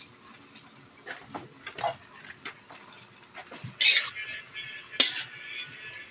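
Metal spatula scraping and clanking against a wok as stir-fried noodles are tossed, in irregular strokes, the loudest about four and five seconds in.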